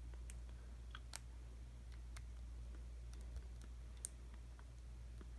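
Lock pick and tension wrench working the pins inside an American 5200 padlock: faint, irregular small clicks as the pick lifts and sets the pins, over a steady low hum.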